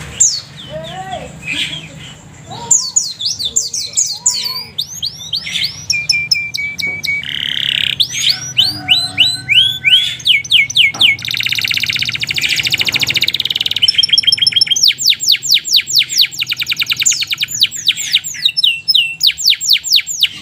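Domestic canary singing a long, varied song of chirps and quick rising whistles, with a rattling buzz near the middle and long, very fast trills of repeated notes through the second half.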